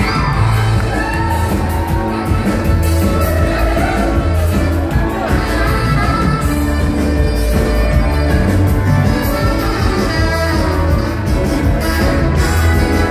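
A live band playing amplified music with a singer, over steady, heavy bass and drums.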